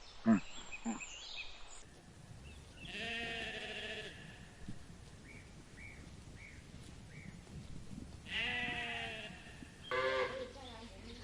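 Bleating: three wavering calls of about a second each, spread through the clip, with a few faint short chirps between them. A couple of short, sharp, loud sounds come in the first second.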